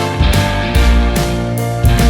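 Background music: a rock-style instrumental with guitar, bass and a steady drum beat.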